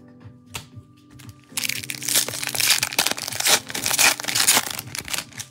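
The foil wrapper of a Topps Chrome Update trading-card pack crinkling loudly in gloved hands as it is torn open and crumpled, starting about a second and a half in and stopping just before the end. Background music runs underneath.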